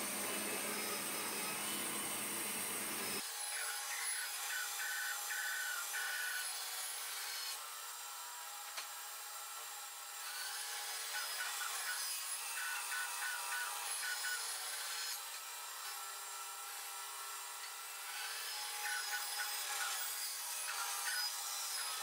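Band saw ripping a long wooden board lengthwise: steady cutting noise that swells and eases as the board is fed through, with a higher whine coming and going. A deeper, fuller machine noise in the first three seconds cuts off abruptly.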